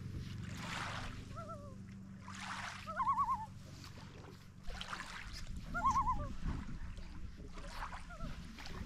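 Paddle strokes in lake water, a soft swish about every two and a half to three seconds, each followed by a short warbling squeak. A low steady hum runs underneath.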